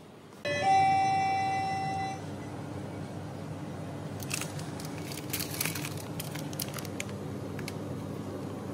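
Electronic chime in a convenience store: a brief lower note, then a held higher tone for about a second and a half, fading slightly. It is followed by a steady low hum of shop background, with scattered light clicks and rustles in the middle.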